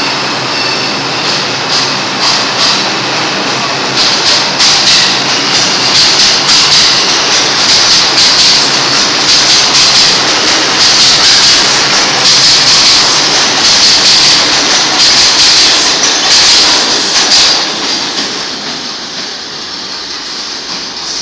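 R142 subway train pulling out of the station and picking up speed: a loud rumble of wheels on the rails with rapid clicking and clacking that builds over the first few seconds. It drops away sharply about 18 seconds in as the last car enters the tunnel.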